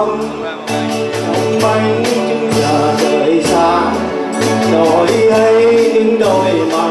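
A woman singing a song into a microphone, backed by a live band with a drum kit and keyboard playing a steady beat.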